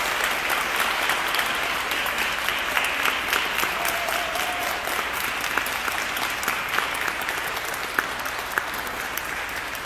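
Audience applauding, many hands clapping at once, slowly dying down.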